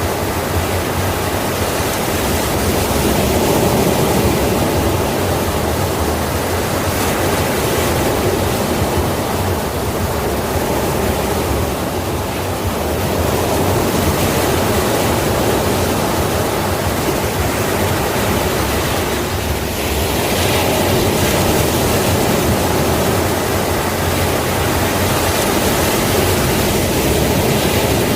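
Sea waves washing in and breaking, a steady rush of surf that swells and eases slowly every several seconds.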